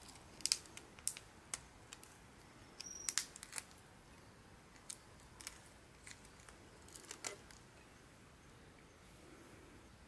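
Shell of a grilled prawn crackling and snapping as it is peeled by hand: a scatter of small sharp cracks, thickest around half a second and three seconds in, over the first seven seconds or so.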